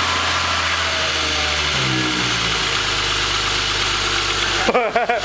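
1998 VW GTI's 2.8-litre VR6 engine idling steadily just after its first start following a clutch and transmission swap. The idle shifts slightly about two seconds in.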